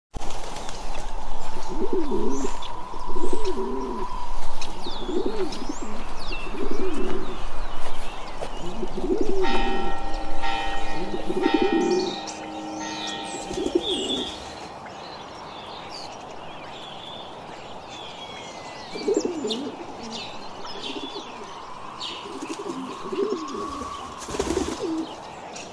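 Doves cooing in repeated low phrases, with smaller birds chirping and twittering higher up. About ten seconds in, a ringing tone with several pitches sounds for about two seconds. The cooing is louder in the first half and sparser later.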